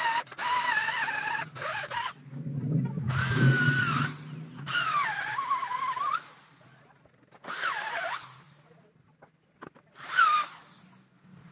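Corded electric drill boring into a thick round slab of wood in about five bursts of a second or two each. The motor's whine dips and rises as the bit bites into the wood under load.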